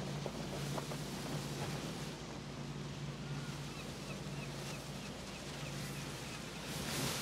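Low steady drone of a tugboat under way, over the rush of churned water from its wake and the towed barge. The drone is strongest in the first couple of seconds, and the water hiss swells near the end.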